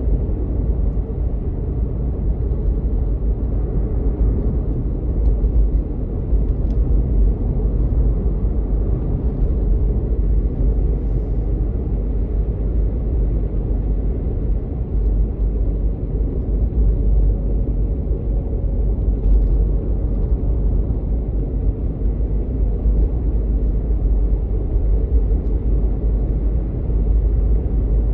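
Steady, deep rumble of a car on the move, heard from inside the cabin: tyre and road noise with the engine running underneath.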